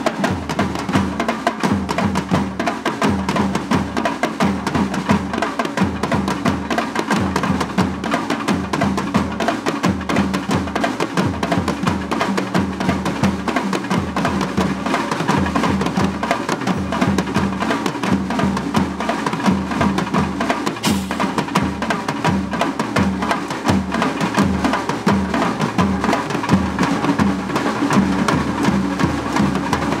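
A drum ensemble playing together in a fast, steady rhythm: a thavil barrel drum beaten with a stick, marching snare drums and bass drums, and a pair of timbales with a cymbal.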